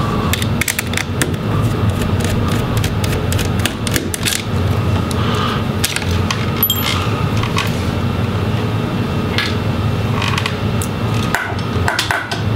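Irregular small clicks, taps and scrapes of a small Phillips screwdriver and a tiny screw on a laptop's metal chassis as the screw retaining the DC jack is undone, over a steady low hum.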